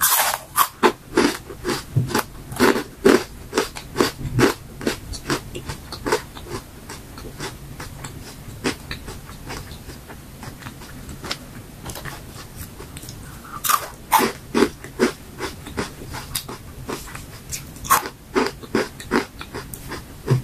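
Crunching and chewing of dried fruit and vegetable chips. A bite right at the start sets off a dense run of crunches that thin out over several seconds. A second bite a little past the middle starts another run of crunching.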